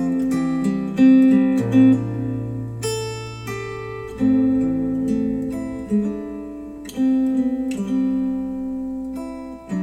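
Acoustic guitar music, chords plucked and strummed and changing about every second, played back through Wharfedale Denton 80th bookshelf speakers driven by a NAD C 338 integrated amplifier.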